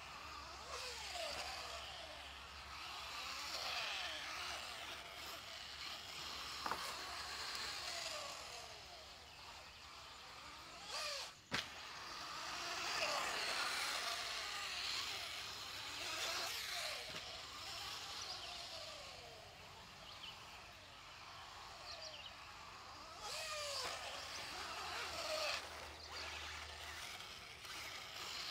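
Team Associated B5M electric 1/10 RC buggy running laps on a dirt track: its motor whine sweeps up and down in pitch with throttle and braking over the rustle of tyres on dirt. A single sharp click about eleven seconds in.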